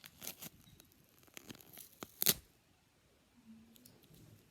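Wrapping being torn open by hand: several short rips and crinkles, the loudest about two seconds in.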